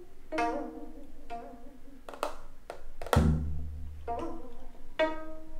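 Background music of plucked pizzicato strings, a light run of short notes, with a deep bass note about three seconds in.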